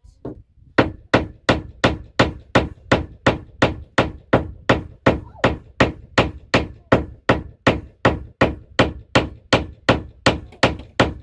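Hammer blows struck in a steady, even rhythm, about three a second, each a sharp strike with a short ring.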